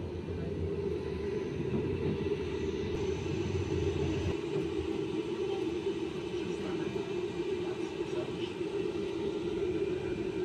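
Steady running rumble of a city tram, heard from inside the passenger car; the deepest part of the rumble drops away about four seconds in.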